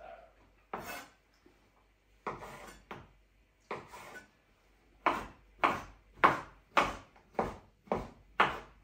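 Kitchen knife dicing pickled cucumber on a wooden cutting board. A few scattered cuts come first, then a steady run of about seven chops, roughly two a second, in the second half.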